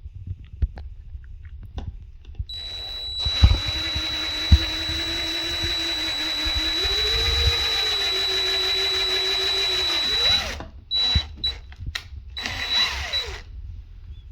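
Power drill boring a hole through a cabinet drawer front, run steadily for about eight seconds with a high whine, its pitch lifting a little midway. Near the end come a few short bursts of the drill and a winding-down.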